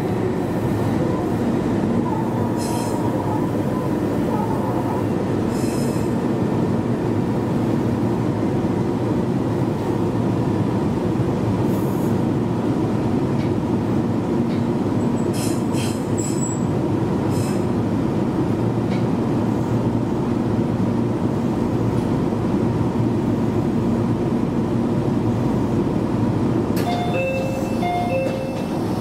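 Meitetsu 1200-series limited express electric train heard from inside near the front, a steady rumble and hum of wheels and running gear with a few brief clicks. Short beeps at two pitches sound near the end.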